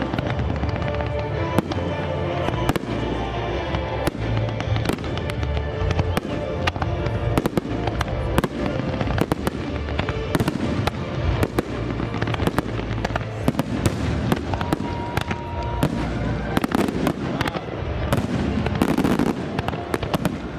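Fireworks shells bursting overhead, many sharp bangs and crackles in quick succession that come thicker near the end, with music playing underneath.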